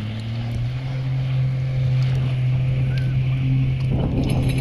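Jet ski engine running at a steady pitch, a loud drone. About four seconds in, a sudden rush of noise joins it.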